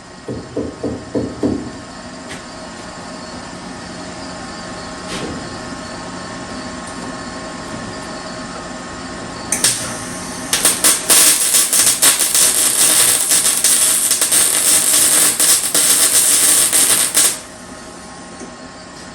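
MIG welder arc crackling for about seven seconds as a stitch weld is laid on steel quarter-panel sheet metal, after a short blip a second earlier; it cuts off abruptly. Near the start, about six quick knocks.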